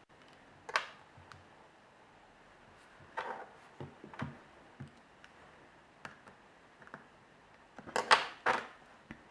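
Scattered sharp clicks and scrapes of a small screwdriver prying at an iPhone 3G's plastic and metal to free the touchscreen, with the loudest cluster of clicks near the end.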